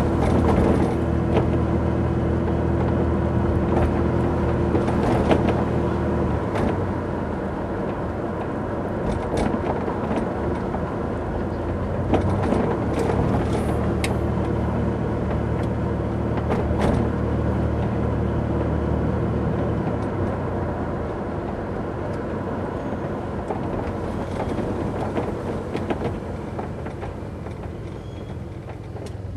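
Road noise and engine hum inside a moving vehicle driving over bumpy roads, with scattered knocks and rattles from the bumps.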